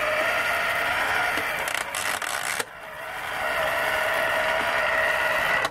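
Battery-powered electric motor and gears of a 1998 G.I. Joe MOBAT motorized toy tank running with a steady whine as it drives along on its treads. It cuts out briefly a little under halfway, starts again and builds back up, then cuts off near the end.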